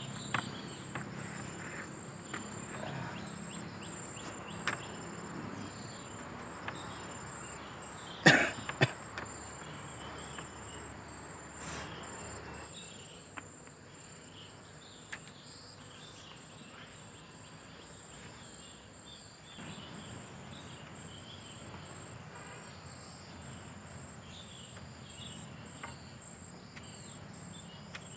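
A steady high-pitched insect trill, likely crickets, over forest ambience. About eight seconds in there is a sharp knock on wood, the loudest sound, followed half a second later by a lighter one.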